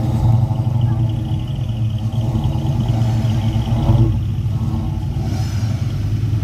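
Engine of a late-1960s Ford F-series pickup running at low speed as it rolls slowly past, a steady low rumble, with other classic cars' engines running in the background.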